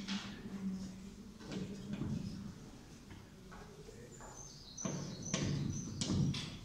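Chalk writing on a blackboard: short scraping strokes and taps, with a few high chalk squeaks in the second half.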